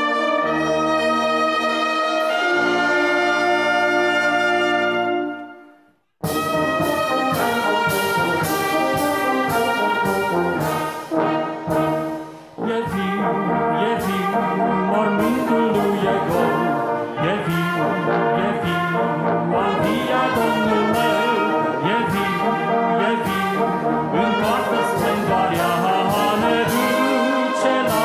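Brass band playing: a long held chord that dies away about six seconds in, a moment of silence, then the band comes back in with a busier passage over a steady beat.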